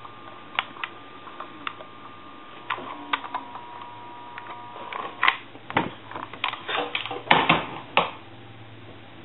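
Scattered clicks and light taps of small hand tools and parts being handled during soldering work on telephone wiring, coming thick and fast from about five to eight seconds in. A faint steady high tone sits under the first half.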